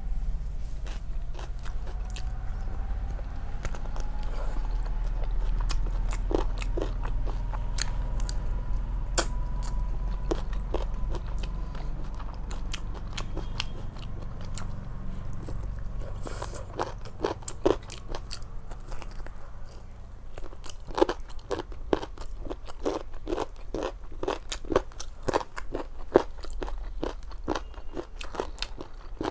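A person eating close to the microphone: wet mouth clicks and crunches of chewing and biting, scattered at first, then settling into a steady chewing rhythm of about two a second a little past halfway.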